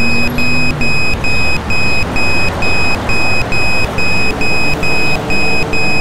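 Pedestrian crossing signal beeping fast, about three short high beeps a second: the walk tone that sounds while the green walking figure and countdown are lit. Under it runs a steady rush of traffic noise.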